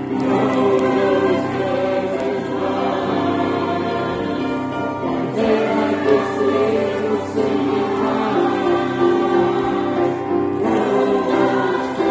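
A choir singing in harmony, held chords moving into new phrases about five and ten and a half seconds in.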